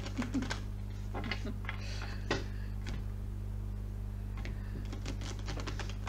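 Playing cards being handled by hand: scattered light clicks and taps, the loudest a little over two seconds in and a quick run of clicks near the end, over a steady low hum.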